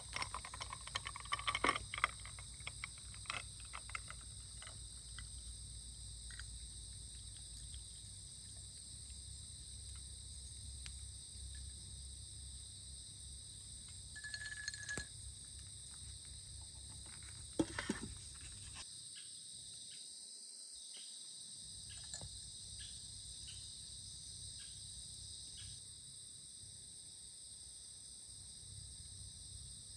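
Steady high-pitched insect chorus of crickets chirping outdoors, with scattered light clicks and knocks, most of them in the first few seconds and one sharper knock about 18 seconds in.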